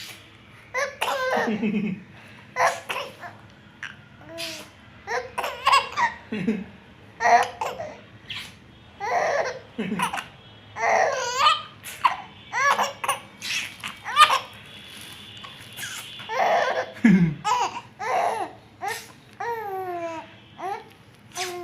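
Four-month-old baby laughing in short repeated bursts, mixed with babbling, some bursts gliding up or down in pitch.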